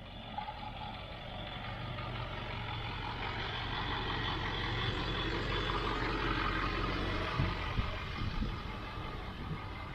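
Four-wheel-drive vehicle driving on a back road: steady engine hum and road noise that grow gradually louder, with a few knocks and rattles about three quarters of the way through.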